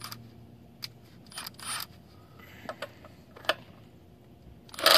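A few light clicks and knocks as a deep-well socket is fitted over a car lug nut. Near the end a Milwaukee 2753 brushless impact driver starts hammering on the nut, which is set at 128 foot-pounds; this is the loudest sound.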